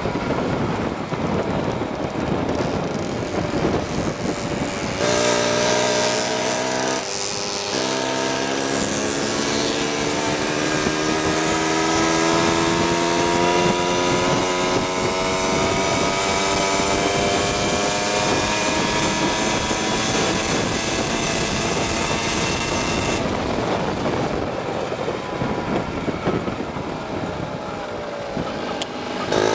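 Small two-stroke engine of a vintage moped running under way, mixed with a rushing noise. About five seconds in its note stands out clearly and climbs slowly in pitch as the moped gathers speed. Near the end it fades back into the rushing noise.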